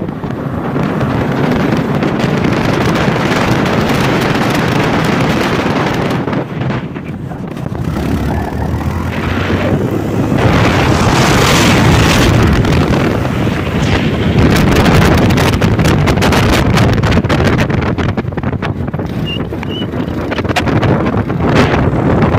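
Wind rushing and buffeting over the microphone on a Yamaha Lander 250 motorcycle moving at road speed, rising and falling in gusts, with vehicle noise underneath.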